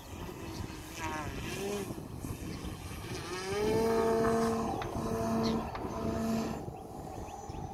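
Electric motor and 22x10 propeller of an Extreme Flight Extra 300 RC plane holding a hover, powered by an XPWR 40cc-class motor on a 12-cell battery. Its whine glides up in pitch about a second in and again about three seconds in, then holds as a steady hum with brief dips as the throttle is worked. Wind rumbles on the microphone throughout.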